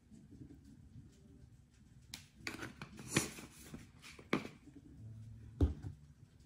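Spice jars handled over a tray of raw lamb chops: a few sharp clicks and knocks, a short shaking rattle of seasoning about three seconds in, and a heavier knock near the end as a jar is set down on the countertop.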